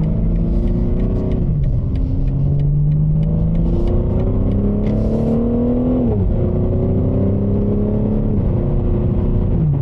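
BMW G80 M3's twin-turbo inline-six with an aftermarket exhaust, accelerating through the gears, heard from inside the cabin. The engine note climbs steadily and drops at each upshift, about a second and a half in and about six seconds in, then falls again near the end.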